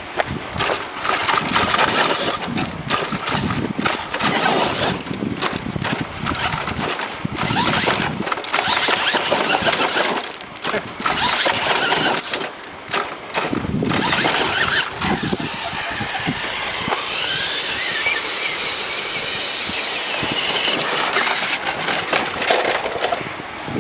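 Remote-control truck driving in bursts, its motor whining and rising and falling in pitch as the throttle goes on and off.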